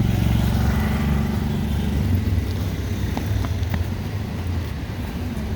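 A motor vehicle engine running, a steady low drone that eases off slightly in the second half.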